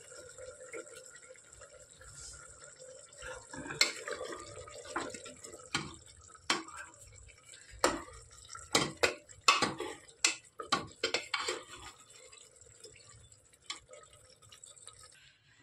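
A metal ladle stirring chicken and masala in a pressure cooker, clinking and scraping against the pot's metal sides. The clinks come in an irregular run from about four seconds in for several seconds, over a faint steady hum.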